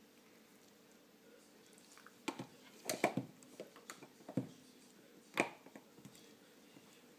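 A Shiba Inu puppy pawing a toy on a wooden floor: a scatter of short knocks and clicks of the toy and claws against the boards, bunched between about two and six seconds in.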